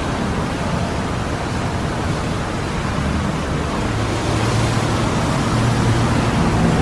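Ryko SoftGloss Maxx rollover car wash running its brush pass: cloth brushes spinning against the car with water spray, making a steady rushing noise. A low motor hum comes in about four seconds in, and the noise grows a little louder.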